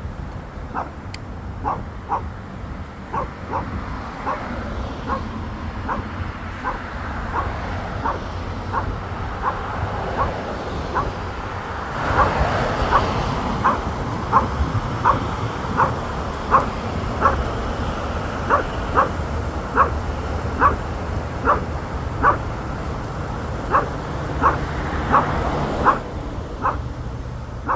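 Small Shih Tzu barking repeatedly in short, high yaps, about one and a half a second, steadier and more regular from about halfway through: the barking of a small dog provoked by larger dogs. A low rumble runs underneath.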